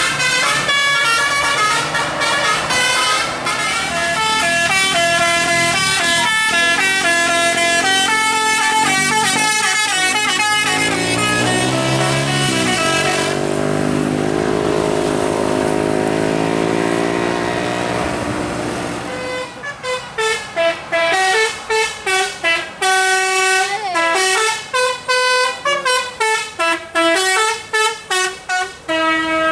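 Indonesian 'telolet' bus horns, Basuri multi-tone air horns, playing quick stepped tunes. Partway through a lower, drawn-out tone takes over, and near the end come rapid short toots in quick succession.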